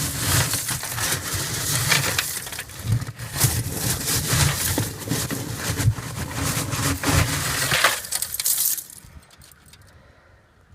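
Hard, crunchy scraping with many sharp clinks, like scale or grit being scraped against metal, which stops about nine seconds in. It fits limescale being scraped out of a copper hot-water tank.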